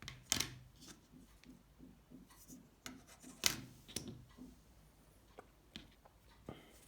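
Small plastic and metal parts of a Nokia 7373 mobile phone being handled and set down during disassembly. A few sharp clicks, the loudest near the start and about three and a half seconds in, with light rubbing and tapping between.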